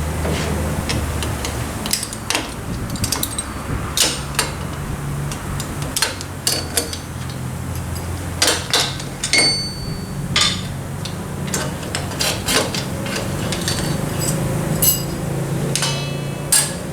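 Irregular metal-on-metal knocks and clinks from hand tools and loose parts while a Suzuki Carry's rear brake is being dismantled. Some strikes ring briefly, and a steady low hum runs underneath.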